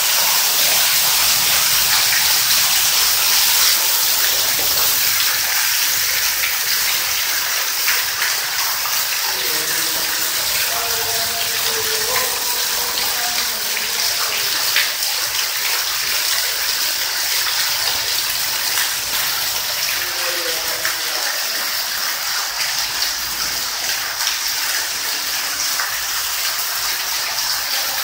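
Heavy rain pouring down and splashing onto a flooded concrete doorway and floor: a loud, steady rush of water.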